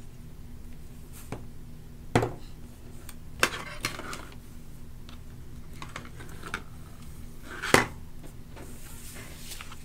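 Craft tools and paper handled on a plastic cutting mat: about five sharp clacks as a glue bottle and scissors are put down and picked up, the loudest near the end, with light paper rustling between them.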